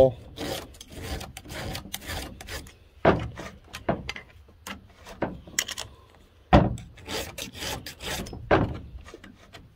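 Flat file rasping in short strokes across the depth-gauge rakers of a chainsaw chain, through a depth-gauge tool, with a few louder knocks about three, six and a half and eight and a half seconds in.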